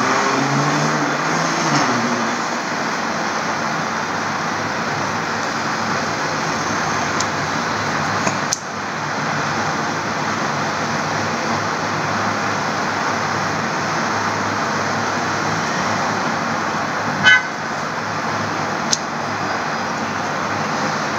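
Steady background noise, with a single click about eight seconds in and a short high-pitched toot near the end.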